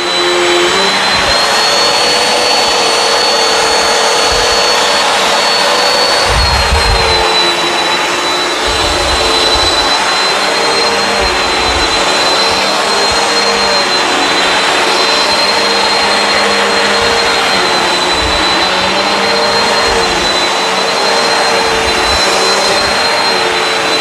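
Bissell CleanView Swivel Pet upright vacuum running steadily: a high motor whine over the rush of airflow, with irregular low thumps now and then.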